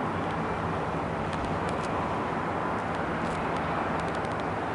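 Steady outdoor background rumble with a low, even hum and a few faint clicks.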